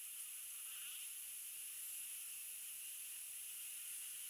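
A steady, high-pitched hiss with no distinct events.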